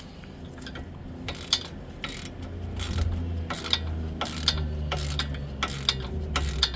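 Hand ratchet wrench clicking in short bursts as it is swung back and forth on a bolt during a shock absorber change, over a steady low hum.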